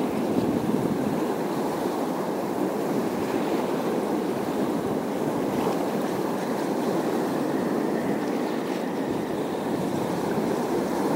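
Sea waves washing steadily against a rocky shore, an even rushing noise with no distinct breaks.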